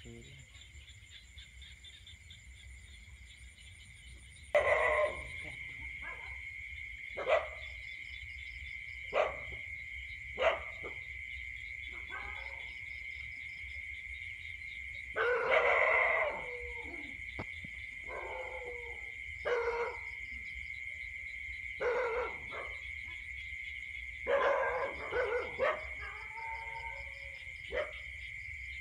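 A dog barking on and off, single barks every second or two with longer runs of barking about halfway through and again near the end, over a steady high drone of night insects.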